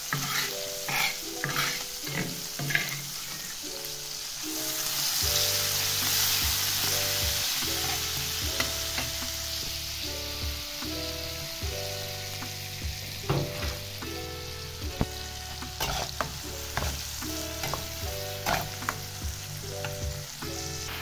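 Chopped shallots, garlic and chillies sizzling in hot oil in a metal pan, stirred with a metal spatula that knocks and scrapes against the pan. Background music with a simple melody and bass line plays throughout.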